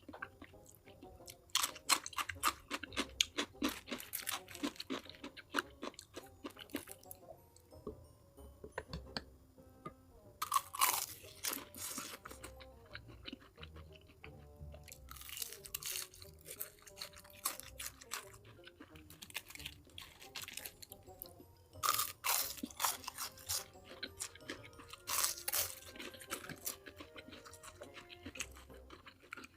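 Close-miked eating: bursts of crunching and chewing of crunchy food, several clusters of rapid crisp bites with quieter chewing between, over soft background music.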